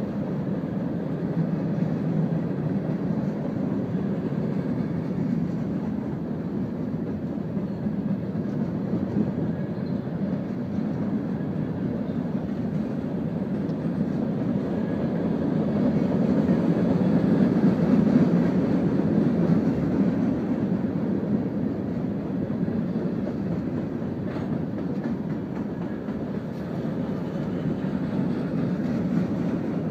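Freight cars of a mixed manifest train rolling past: a steady rumble of steel wheels on rail that swells a little about halfway through.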